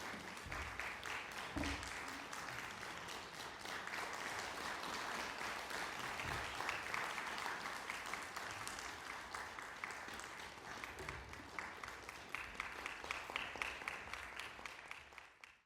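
Audience applauding steadily after a solo cello performance, fading out near the end.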